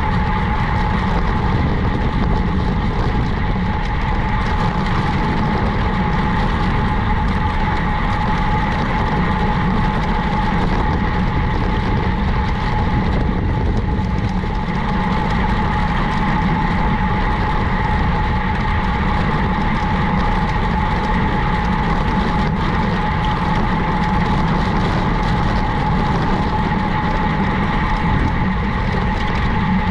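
Steady vehicle running noise: a low rumble with a constant mid-pitched whine, unchanging throughout.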